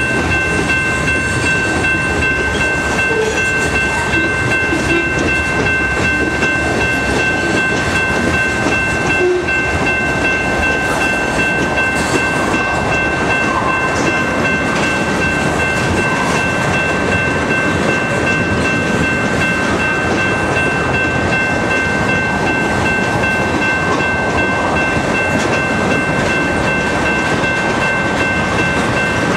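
A loaded freight train's covered hoppers and tank cars rolling past close by: a steady, unbroken rumble and rattle of wheels on rail. Thin steady high-pitched tones ring over it.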